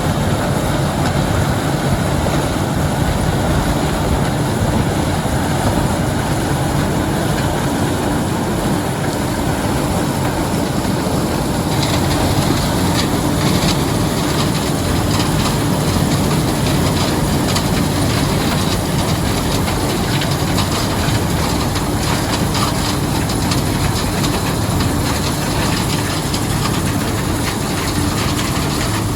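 White 7300 combine running as it harvests corn: a steady engine-and-machinery drone, joined about twelve seconds in by a fast, irregular rattling clatter.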